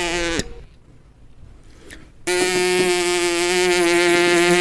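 A steady, buzzy, horn-like cartoon sound-effect tone cuts off about half a second in. After a near-silent gap of nearly two seconds, the same steady tone starts again and holds.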